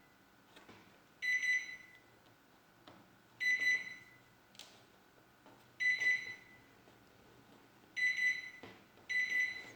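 Sharp microwave oven's control panel beeping five times, each a short high beep, with faint clicks between them. The oven beeps as it is tried but does not start.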